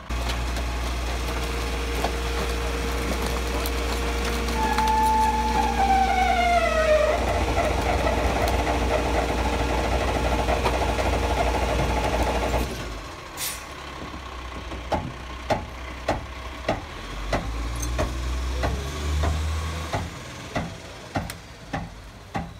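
Rear-loader garbage truck running its engine at raised revs to work the hydraulic compactor: a loud steady rumble, with a falling squeal about five seconds in as the packer mechanism moves. About twelve seconds in the engine drops back to a lower rumble, with a regular ticking about one and a half times a second, and the engine rises again near the end as the truck pulls away.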